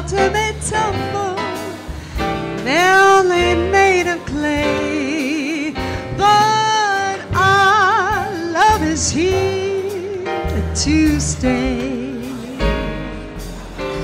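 Female jazz vocalist singing held notes with vibrato and scooping glides, backed by a small jazz band with piano, bass and drums.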